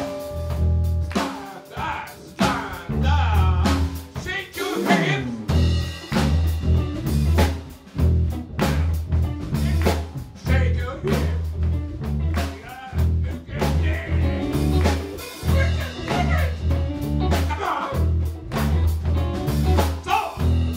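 Live band playing with a drum kit, electric guitars and a steady pulsing bass line, and a singer at the microphone.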